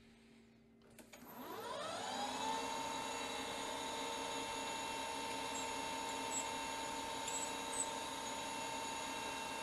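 A metal lathe starting up: near silence, then a click about a second in, and the spindle and motor come up to speed, their whine rising in pitch for about a second before running steadily.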